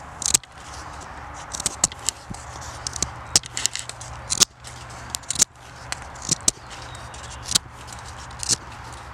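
Fixed-blade knife shaving a green stick to a point: short scraping cuts, roughly one a second, some coming in quick pairs.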